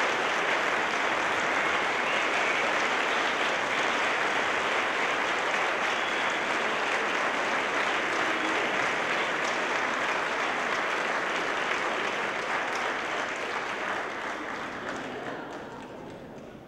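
Concert audience applauding, a dense, even clapping that dies away over the last few seconds.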